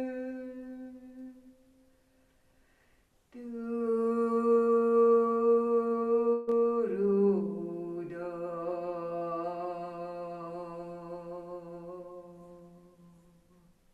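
A woman's voice toning long, wordless held notes. The first note fades away within the first two seconds. After a short pause a new note begins, slides down to a lower pitch about halfway through, and is held until it fades near the end.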